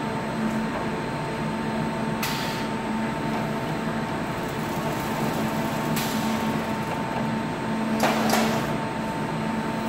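Automatic container unloader and its conveyor belts running with a steady machine hum. Two or three short hissing sounds come through, the loudest near the end as the gripper lifts a coffee bag.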